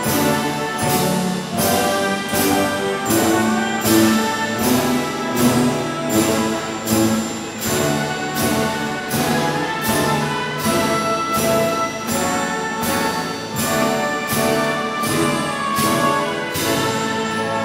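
Orchestral music with brass and a steady beat.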